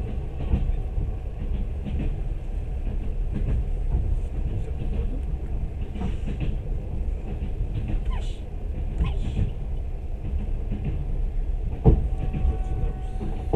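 Moving passenger train heard from its carriage: a steady low rumble of wheels on track with scattered clicks and knocks, and one sharper knock about twelve seconds in.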